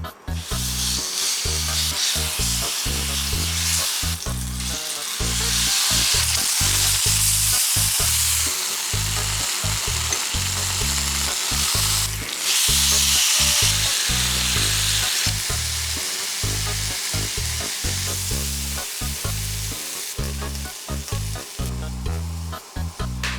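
Food sizzling as it fries in a pan. The sizzle grows louder for a few seconds twice, over background music with a steady bass line.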